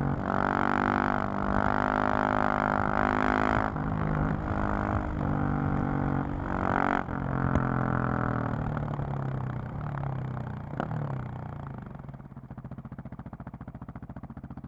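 2020 KTM 690 SMC-R's single-cylinder engine pulling at high revs, with short breaks in the note near four and seven seconds as gears change. It then winds down in pitch as the bike slows and settles to a steady idle for the last few seconds.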